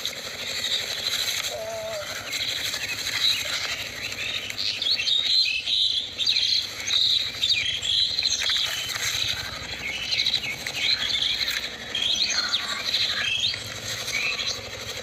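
Small birds chirping in quick, high-pitched calls, busiest from about four seconds in.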